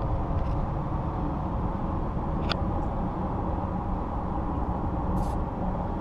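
Steady road and wind noise inside a Honda Ridgeline's cabin at highway speed, about 80 mph, with a roof fairing over the crossbars. It is quiet, with only a little wind sound left from the roof rack. Two brief faint ticks come about halfway through and near the end.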